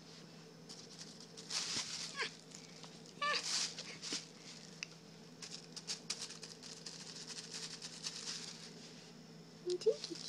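Cat rummaging in a thin plastic shopping bag: the plastic crinkles and rustles in short bouts, then a long run of small crackles. A few brief high-pitched vocal squeaks are mixed in.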